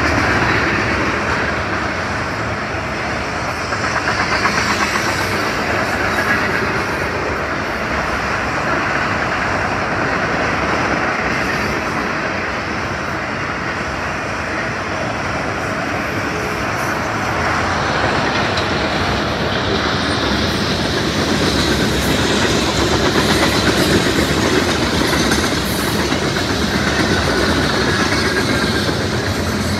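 Freight cars of a fast-moving train (autoracks, boxcars, a covered hopper and lumber flatcars) rolling past: a steady, loud noise of steel wheels running on the rails.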